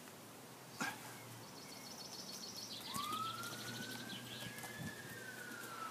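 Faint emergency-vehicle siren: about three seconds in it winds up into one long, steady wail. A sharp knock comes about a second in, and faint high chirps follow before the wail.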